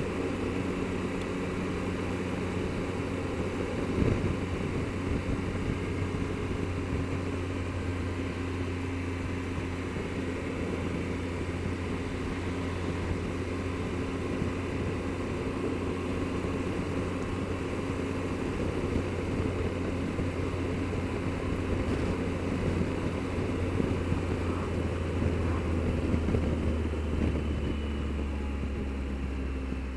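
Triumph Explorer motorcycle's three-cylinder engine running steadily on the move, under a constant rush of wind and road noise, with a single knock about four seconds in.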